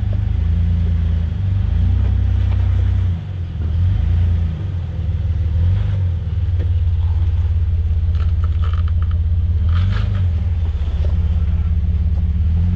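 Jeep Wrangler Rubicon engine running at low revs as it crawls over rocks, a steady low rumble that eases briefly about three seconds in. A few short clicks and scrapes come about eight to ten seconds in.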